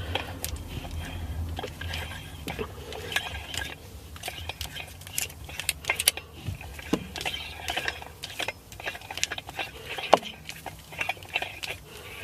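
A gear knob and its adapter parts being handled and fitted onto a car's gear lever: irregular small clicks, taps and scraping of hard metal and plastic pieces.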